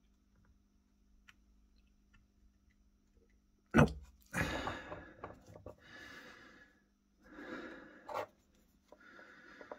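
A sharp knock of a metal tool, then several heavy exhalations and a second click: a man breathing hard while straining to turn a rusted, seized screw with a screwdriver.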